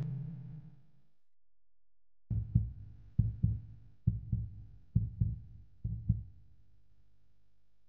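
Heartbeat sound effect: five double thumps, lub-dub, about a second apart, coming in after a loud sound at the start has faded away.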